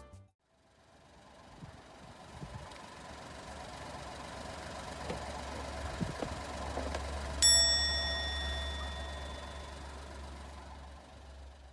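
Car engine idling with a steady low hum that fades in and out, and a single bell-like ding about seven seconds in that rings away over a couple of seconds.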